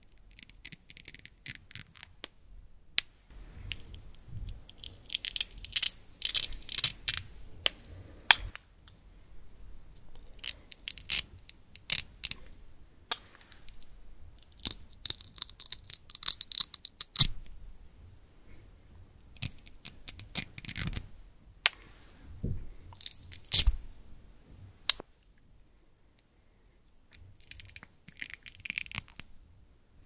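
Velcro hook-and-loop strips on wooden toy fruit and vegetable pieces being pulled apart, a crackly ripping sound that comes in repeated bursts with short pauses between. A few sharp clicks stand out between the rips, and there is a lull a little after the middle.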